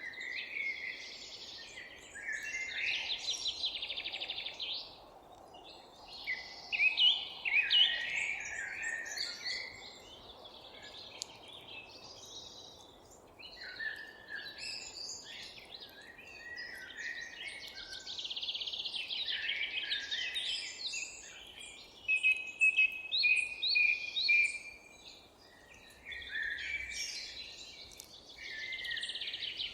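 Several songbirds singing and calling at once, a constant chorus of chirps, trills and short repeated phrases, over a faint steady outdoor background hum.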